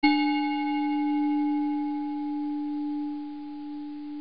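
A single struck bell tone, like a singing bowl, rings out at the start and holds a low steady note that slowly fades. Its higher overtones die away first.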